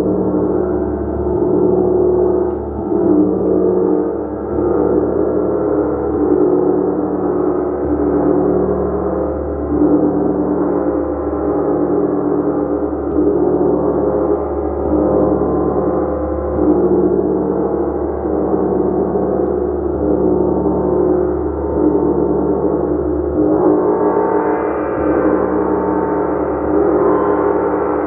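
Gong played continuously with repeated strikes, a dense wash of many overlapping ringing tones swelling and pulsing every second or two. About three-quarters of the way through it swells brighter, with higher overtones coming in.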